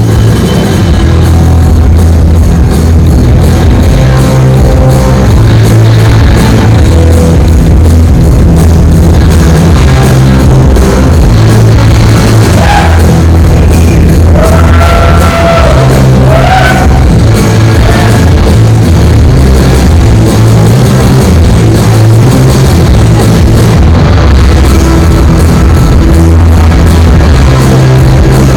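Loud rock music with a heavy, steady bass line and electric guitar.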